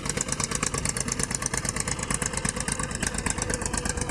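Mahindra tractor's diesel engine running steadily with a fast, even clattering knock.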